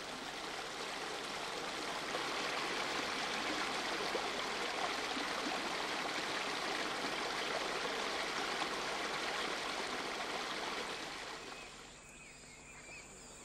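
Fast river water rushing over a rock bar and between boulders, a steady rush of rapids. About twelve seconds in it drops away to a much quieter background with faint chirps.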